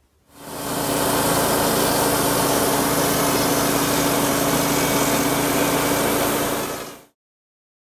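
Wood-Mizer LT35 portable band sawmill running steadily at speed, its engine with a strong steady hum under the noise of the machine. It comes up just after the start and stops about seven seconds in.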